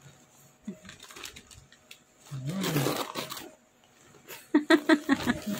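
Gift wrap and white paper packaging rustling and crinkling as a present is unwrapped. A drawn-out voiced exclamation comes about halfway through, and a quick run of excited vocal bursts near the end.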